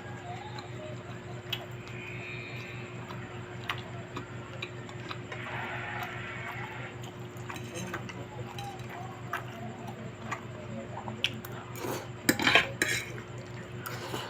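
Eating at a table: utensils clicking and clinking against a plate, with the loudest clatter about 12 seconds in, over a steady low hum.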